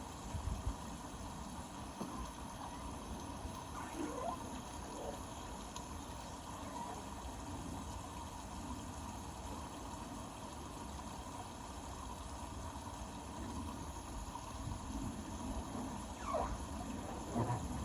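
Indesit Innex BWE 91496X front-loading washing machine at work, water trickling and sloshing in the drum over a steady low hum, with short gurgles about four seconds in and again near the end.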